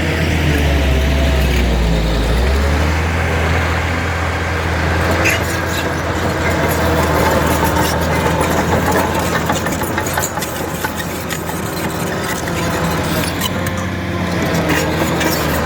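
Diesel engine of a Caterpillar 973D track loader running steadily, its pitch changing about two and a half seconds in, with a few light clanks.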